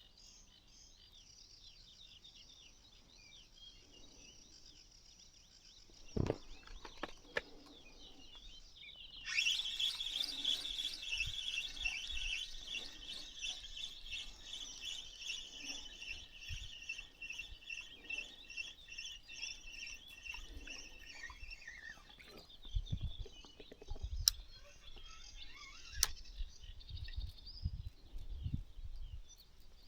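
Birds chirping with a dense high chirring. The chirring grows much louder about nine seconds in, then dies away around two-thirds of the way through. A few sharp clicks and low knocks come in the later part.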